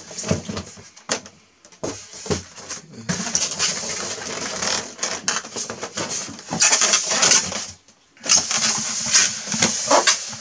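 Polystyrene foam packaging being handled and pulled off, foam rubbing and squeaking against foam. Light handling noises come first, then long spells of loud scratchy rubbing with a brief pause near the end.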